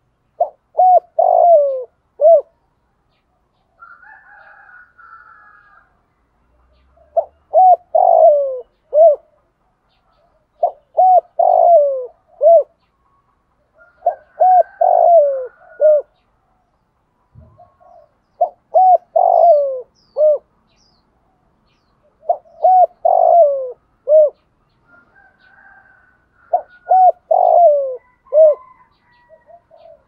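Spotted dove cooing, repeating a short phrase of three or four coos about every four seconds. This is the male's song of the kind used as a decoy call to lure wild doves.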